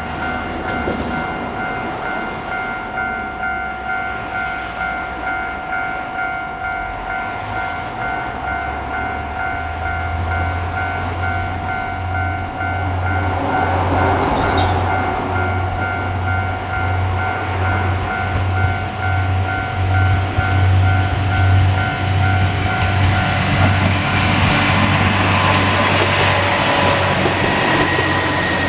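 A Japanese level-crossing alarm rings in a steady repeating pattern while a Kanto Railway KiHa 2100-series diesel railcar approaches, its low engine hum growing from about a third of the way in. In the last few seconds the railcar passes close and the loud rush of its engine and wheels takes over as the crossing tones stop.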